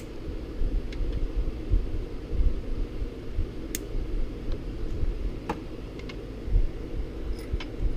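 Steady low room hum, with a few light clicks of small plastic parts being handled.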